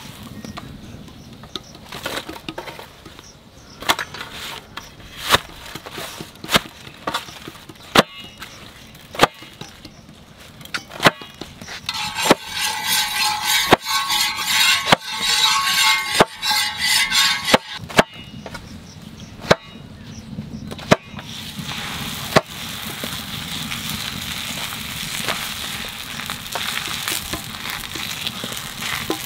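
Hands beating and crushing freshly cooked parathas on a metal tray to loosen the layers: sharp slaps about once a second, with a crackly crumpling sound in the middle. About two-thirds of the way through, a raw paratha goes onto the hot iron tawa and sizzles steadily.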